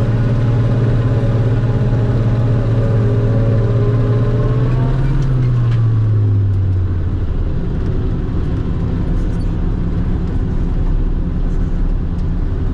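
Tractor engine running under a steady drone with the forage harvester, then about five seconds in its pitch falls and settles lower as the engine slows.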